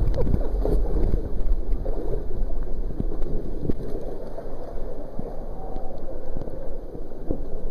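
Creek water sloshing and gurgling around a swimmer, with a low rumble of water buffeting the microphone at the surface.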